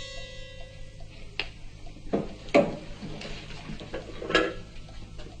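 A clock ticking steadily, with several sharp clicks and clatters of objects being handled; the loudest come about two and a half and four and a half seconds in. The tail of a music track fades out in the first second.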